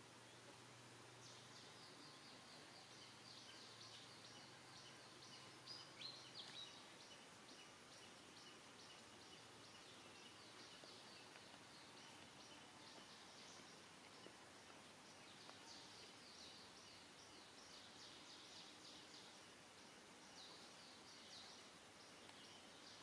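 Near silence: faint outdoor ambience with a fast, steady, high-pitched chirping and a few louder chirps about six seconds in.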